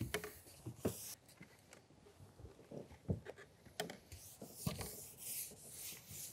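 A scrub-pad applicator is worked in a plastic bucket of EPDM tape primer, with a few light knocks and taps. In the second half comes a scratchy, rasping rub as the primer is scrubbed onto the EPDM rubber sheet.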